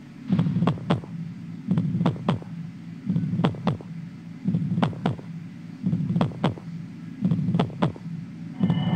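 Slow heartbeat sound effect: paired low thumps, each dropping in pitch, repeating about every second and a half. Near the end a held, eerie synthesizer tone comes in over the beats.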